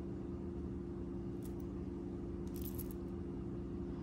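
Faint light metallic clinks of a small metal jewelry piece being handled: one tick about one and a half seconds in and a short cluster about two and a half seconds in. A steady low hum runs underneath.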